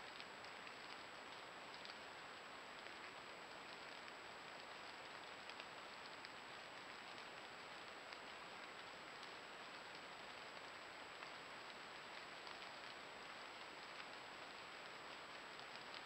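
Steady low hiss of a trail camera's microphone with a thin, high electronic whine, and a scatter of faint ticks.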